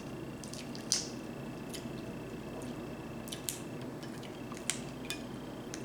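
Eating seafood: scattered small clicks and wet smacks of chewing and handling shrimp and crab, with one louder smack about a second in, over a steady low background.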